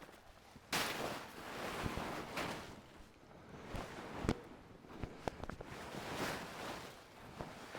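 Plastic tarp rustling and crinkling as it is lifted and shifted, in several noisy swells with a few sharp clicks.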